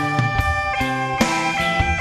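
Rock music: a guitar-led passage over a steady drum beat, with no singing.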